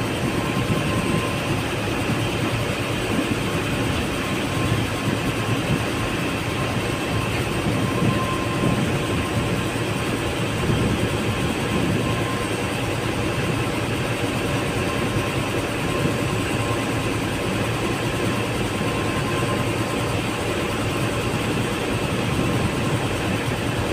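A boat's engine running with a steady rumble, mixed with wind buffeting the microphone.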